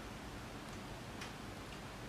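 A few faint, sparse ticks over a low, steady hum.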